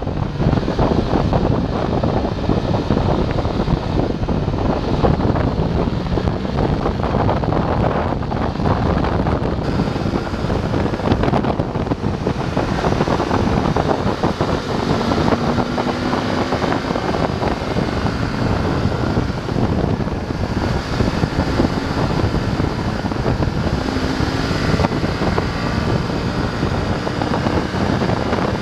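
BMW F850 GS parallel-twin engine running under way, its note rising and falling with the throttle, under heavy wind noise on the microphone.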